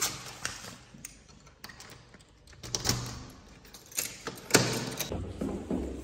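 Door handle and lock clicking and knocking as a door is worked open, with the sharpest knock about four and a half seconds in, then footsteps starting near the end.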